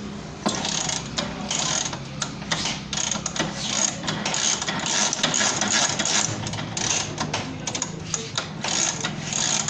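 Hand tools working on a scooter engine: quick, irregular rasping and ratcheting strokes, several a second, over a steady low hum.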